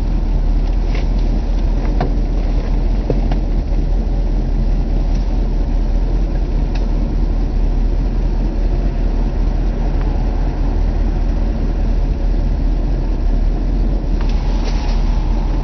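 1966 Ford Thunderbird's V8 engine idling steadily, warmed up, with a few faint clicks over it. The owner says the engine has an exhaust leak at the manifold.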